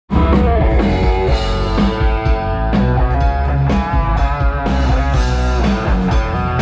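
Rock music played by a band over a PA system at a sound check: guitar over heavy bass, loud and continuous.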